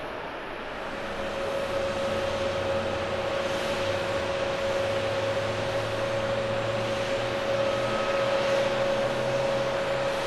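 Airbus A350 jet engines at high power on the runway: a steady rumble with a droning tone. It grows louder about a second in, and the low hum rises slightly in pitch a few seconds later, as the airliner begins its takeoff roll.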